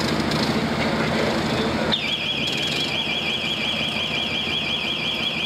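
Street noise with an engine idling, then about two seconds in an electronic alarm starts abruptly, warbling fast up and down about four times a second.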